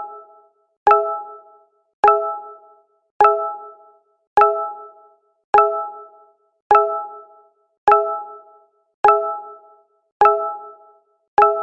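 Google Hangouts notification sound, a short chime that starts sharply and fades within about a second, repeated at a steady interval of about 1.2 seconds.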